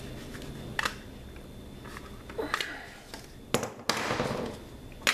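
Several sharp clicks and knocks of rifle parts being handled on a hard tabletop as the handguard and rail of an AR-15-type rifle are worked loose, with a short scrape about four seconds in.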